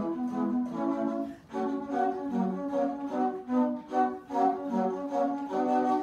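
Flute trio playing, several flutes moving in quick changing notes over low notes from a bass flute.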